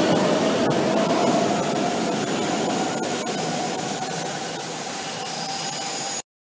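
Brussels metro train accelerating out of an underground station into the tunnel: a steady rumble with a slowly rising whine, fading as the train draws away. The sound cuts off abruptly near the end.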